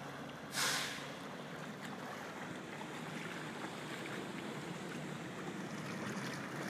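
Steady rushing wash of floodwater on a flooded street, with a low steady hum underneath. A brief loud hiss about half a second in.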